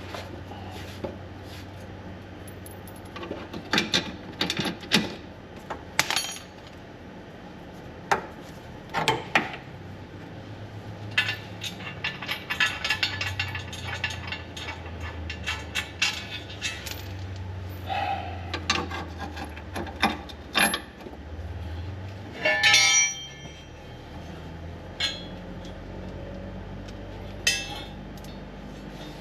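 Hand tools and bolts clinking and rattling against a metal skid plate as it is fitted and bolted up, in scattered sharp knocks with a short, louder rattle near the end. A steady low hum runs underneath.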